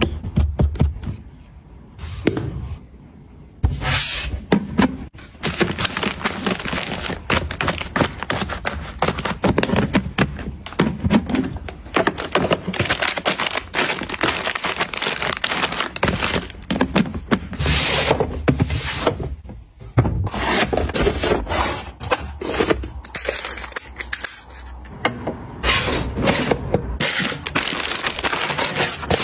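Close-up handling of plastic packaging and household items: crinkling of plastic wrappers mixed with taps, clicks and scrapes as things are picked up, sorted and set down, in quick irregular succession.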